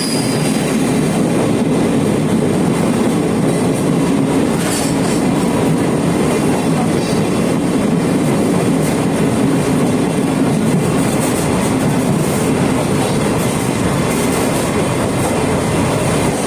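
Sagano Romantic Train sightseeing carriage running along the track, heard on board: a steady rumble of wheels on rails with some clickety-clack.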